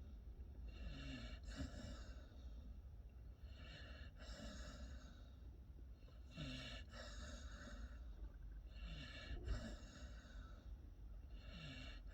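Pit bull puppy snoring in its sleep, one slow, even snoring breath about every two and a half seconds.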